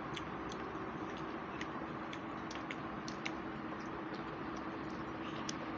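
Quiet eating by hand: small irregular clicks and smacks, a few each second, over a steady low room hum.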